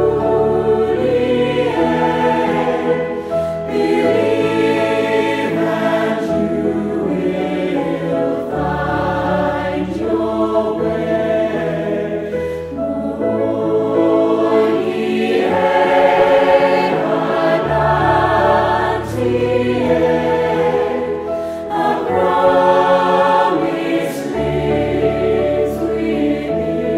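Mixed-voice choir singing a slow piece in sustained chords, the phrases swelling and easing every few seconds.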